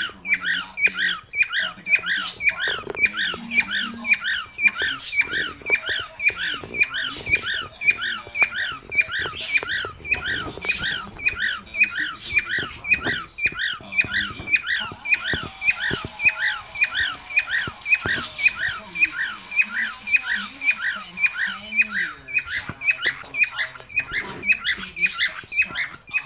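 Cockatiel giving its laugh: a short, squawky call repeated steadily, about three to four times a second, without a break.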